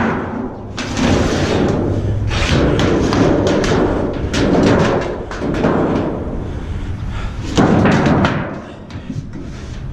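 Scrap metal being handled and loaded: about six heavy thuds with clattering spread over ten seconds, the loudest near the end.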